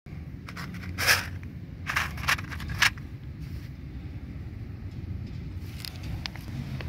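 Crunching footsteps on coarse gravel: a few sharp steps in the first three seconds and a couple more near the end, over a steady low rumble.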